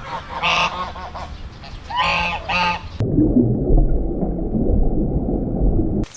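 Geese honking, calls coming in quick pairs. About halfway through, the calls cut off and a low, even noise takes over for about three seconds, then stops suddenly.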